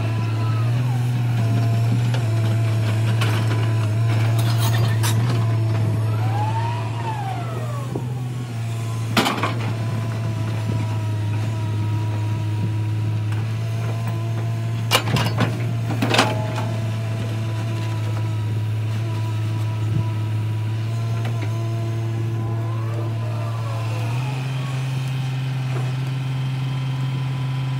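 L&T-Komatsu crawler excavator at work: its diesel engine runs steadily under a hydraulic whine, the engine note stepping up and down a few times as the hydraulics take load, and the whine rising and falling three times. Sharp metallic clanks of the bucket sound once about a third of the way in and in a quick cluster just past the middle.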